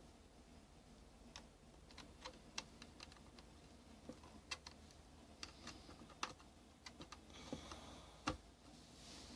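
Faint, irregular light clicks and taps of small plastic parts, about a dozen spread over several seconds, with a louder cluster of clicks at the very end.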